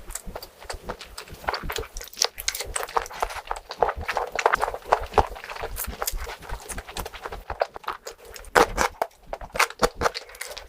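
Close-miked eating: a person chewing and biting food, a dense, irregular run of short clicks and crackles.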